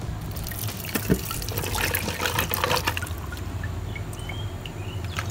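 Water from a kitchen tap running into a plastic blender jar of chopped onion, garlic and ginger, filling it. A couple of light knocks about a second in.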